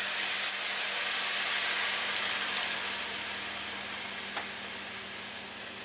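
Hot water poured into a hot pan of sautéed zucchini and mushrooms, deglazing it: a loud sizzling hiss of steam that slowly fades.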